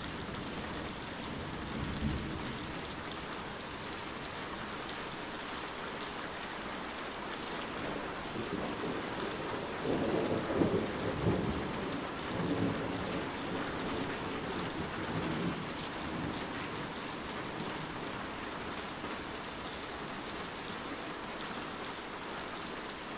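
Heavy rain falling steadily, with a rumble of thunder about two seconds in and longer thunder rumbles from about ten to sixteen seconds in.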